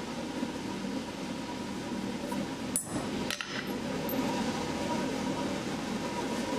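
Two light metallic clinks of steel on an anvil about three seconds in, each with a short high ring, over a steady low rumble.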